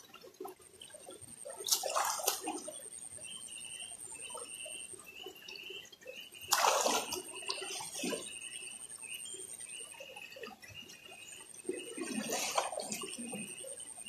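Splashing in a shallow river as a person moves about in the water, with three bigger splashes about two, six and a half and twelve seconds in, over the steady sound of flowing water. A faint, high, evenly repeating chirping runs alongside.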